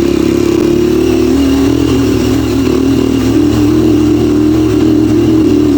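Motorcycle engine running steadily under way, its pitch dipping slightly and rising again with the throttle.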